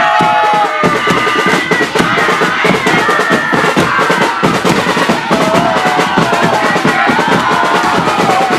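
A group of students chanting and singing a cheer, over fast, steady drumming on a drum.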